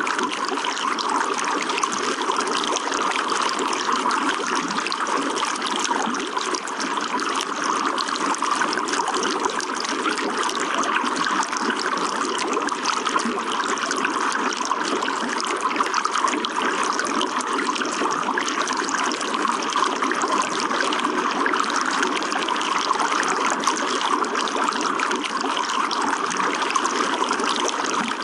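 Running water trickling and splashing steadily, with no change throughout.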